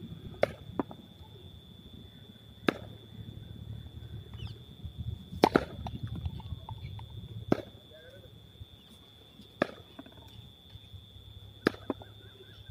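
Sharp knocks of a cricket ball striking the bat and the concrete practice pitch, one about every two seconds, two close together near the start. A steady high-pitched whine runs beneath them.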